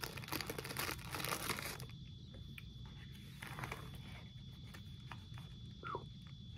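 Clear plastic packaging crinkling as it is handled for about two seconds, then quieter with a few light clicks and taps and one brief squeak near the end.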